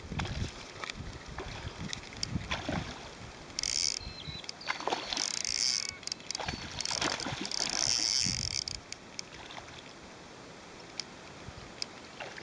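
A hooked carp splashing and thrashing at the water's surface as it is played on a fly rod, with several short, high rasping bursts in the middle. It goes quieter near the end.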